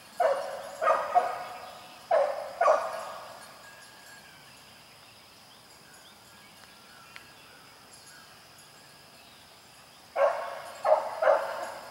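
A single hunting hound giving tongue, barking while trailing a rabbit: a quick string of barks in the first three seconds, a pause of several seconds, then another string of barks near the end.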